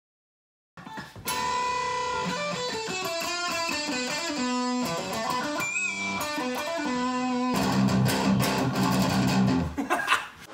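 Electric guitar rock intro: a single-note riff that steps down in pitch, changing about seven seconds in to heavier strummed chords, with a short shout near the end.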